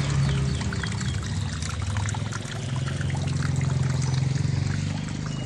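Drain water pouring steadily out of a Samsung WA80U3 top-load washing machine as it empties after the wash, before the spin. A steady low hum runs underneath.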